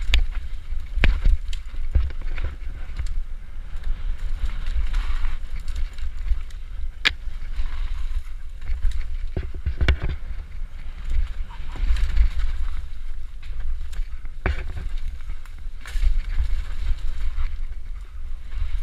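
Mountain bike descending a rough dirt trail at speed: steady wind rumble on the low-mounted camera's microphone, tyres rolling over dry leaves and dirt, and several sharp knocks and rattles as the bike hits bumps and roots.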